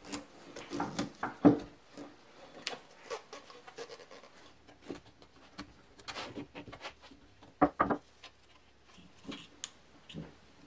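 Rubber inner-tube sleeves being stretched and worked by hand onto a plywood drum: irregular rubbing and handling noises with a few light knocks.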